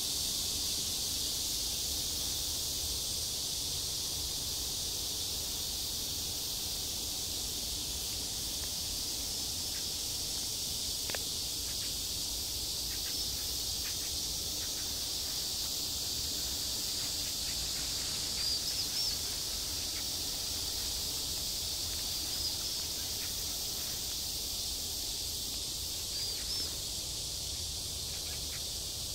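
A steady, high-pitched insect chorus. A few short, high chirps sound over it in the second half.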